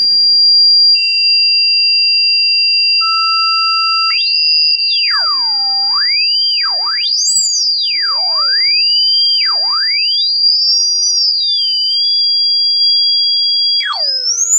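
Synthesized electronic tones played as a rodent-repelling sound: a steady high-pitched whistle, joined by two lower steady tones, then from about four seconds in several tones that glide up and down in pitch like sirens over the steady whistle.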